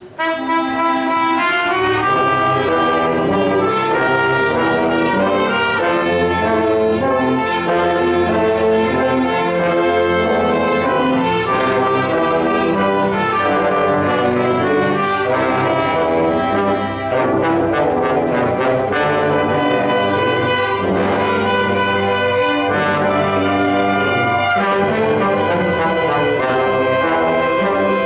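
Church orchestra playing a hymn, brass to the fore: trombones, trumpet and tubas with violins, in steady held chords.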